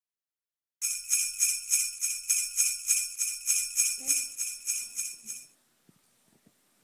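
Jingle bells shaken in a steady rhythm, about three shakes a second, starting about a second in and stopping about five and a half seconds in.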